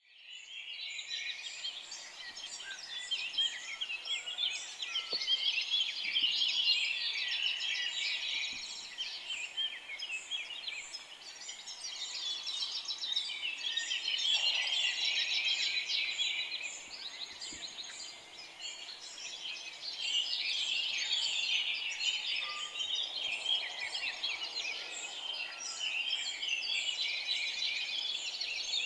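A dense chorus of many small birds chirping together, countless short overlapping chirps and twitters that swell and ease in waves.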